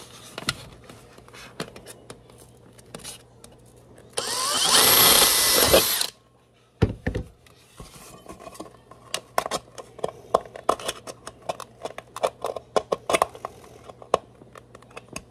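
Thin steel wire guard clicking, ticking and scraping against an aluminium clamp-lamp reflector as it is bent and fitted into place by hand. About four seconds in, a loud mechanical whir runs for about two seconds and cuts off.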